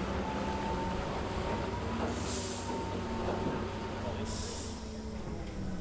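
Engines of M3 amphibious bridging vehicles running low and steady with a faint whine, and two short hisses about two and four seconds in.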